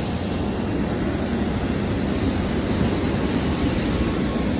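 Steady aircraft noise from an airliner on the ground, an even low rumble with hiss above it.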